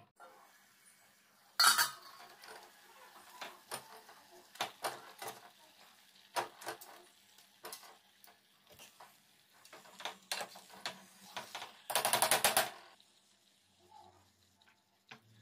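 Stainless steel bowl and utensils clinking and clattering: a loud clank about a second and a half in, scattered light clicks, and a brief loud rattle near the end.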